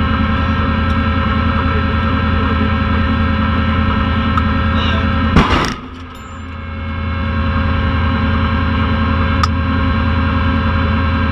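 Steady drone of the M270 MLRS's diesel engine and onboard systems heard inside the crew cab. About five and a half seconds in, a single sudden loud blast cuts through it; the sound then drops away and slowly comes back.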